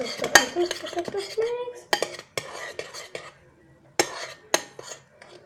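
Metal spoon clinking and scraping against the bowl while stirring a thick, slimy soap-and-salt mixture: a quick run of clinks for about three seconds, then two sharp knocks near the end.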